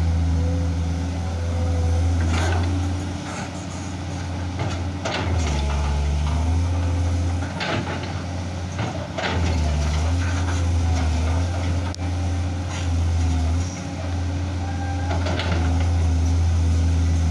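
Komatsu hydraulic excavator's diesel engine running under working load, its drone dropping and rising as the machine swings and digs into karst rock. Scattered sharp knocks and scrapes of the steel bucket against the rock.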